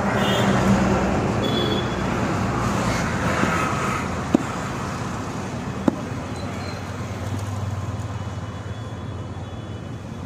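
Steady roadside traffic noise with a vehicle engine running, broken by two sharp knocks of a meat cleaver striking a wooden chopping block, about four and six seconds in.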